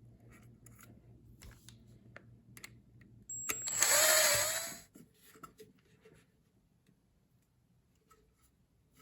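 A power drill runs in one short burst of about a second and a half, its pitch sagging as it winds down. Small clicks and taps of handling come before and after it.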